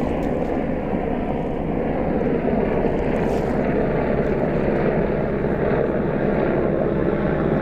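Steady rushing wind noise buffeting the microphone on an open boat, with a low steady hum underneath.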